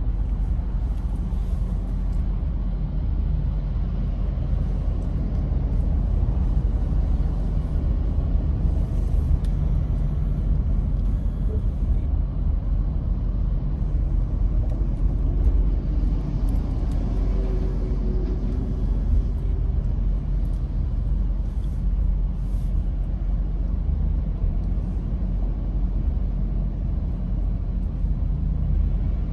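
Steady low road rumble heard inside a car's cabin, with tyre noise from the wet freeway pavement.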